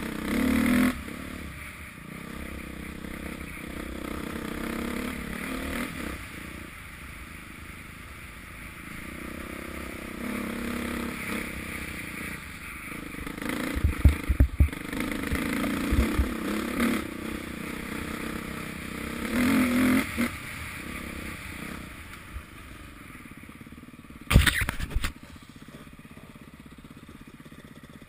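Off-road motorbike engine running along a rough trail, revving up and down with the throttle. Sharp knocks and clatter from bumps come about halfway through and again near the end.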